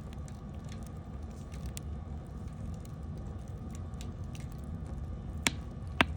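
Wood campfire crackling: a steady low rumble with scattered faint crackles, then two sharp pops about half a second apart near the end.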